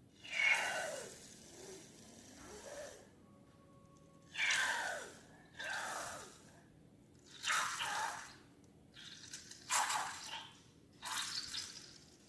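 Wet, squishy liquid sounds of slime or slime ingredients being squeezed and poured. They come in about six separate bursts of a second or so each, some with a falling sweep in pitch.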